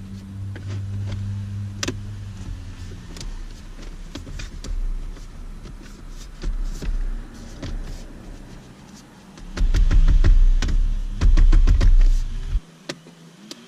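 Plastic clicks and knocks of a trim piece being handled and fitted. Near the end a power driver runs in two loud bursts, driving the two screws that hold the trim in place.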